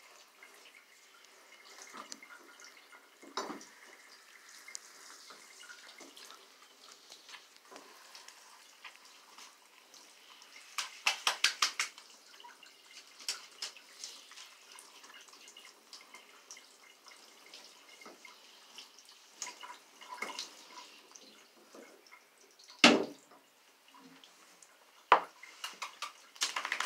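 Handheld shower sprayer rinsing a small dog in a bathtub: a faint steady spray of water with dripping and scattered taps and splashes. A quick flurry of sharp taps comes about eleven seconds in, and a loud thump a few seconds before the end.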